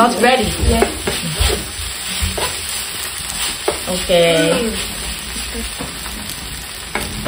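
Noodles sizzling on a hot electric griddle while two spatulas stir, toss and scrape them across the plate.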